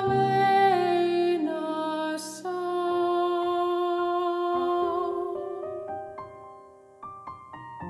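Soprano singing an Icelandic art song over a Roland FP-7 digital piano. About halfway through the voice stops and the piano plays on alone, getting quieter, then starts new chords near the end.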